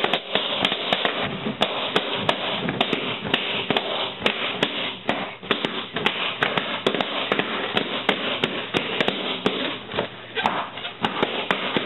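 Rubber party balloons being popped one after another, several sharp pops a second over a steady rustling noise.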